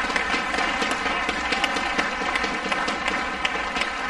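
Badminton rally: sharp racket strikes on a shuttlecock at irregular intervals over a steady hiss of arena noise.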